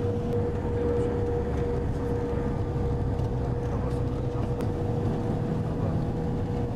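A moving road vehicle heard from inside its cabin: a steady low rumble of engine and road noise, with a steady whine above it.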